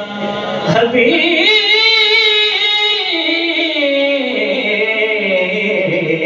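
A man singing a naat, the salawat in praise of the Prophet, unaccompanied into a microphone, in long drawn-out notes. About a second and a half in he holds a wavering note, then steps down in pitch.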